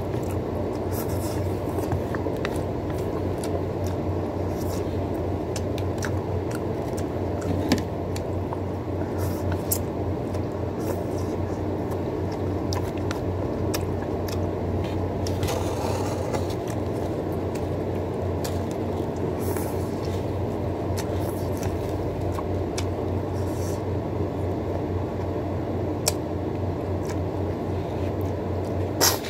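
Eating noodles with chopsticks: scattered short clicks and smacks of chewing and chopsticks over a steady low hum.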